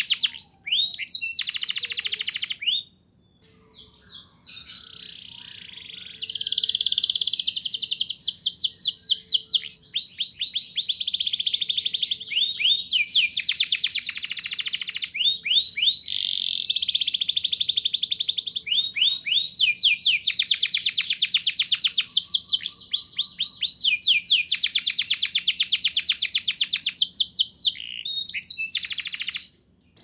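Domestic canary singing long rolled trills, each roll a fast run of rapidly repeated high notes, with a short pause a few seconds in and a sudden stop near the end.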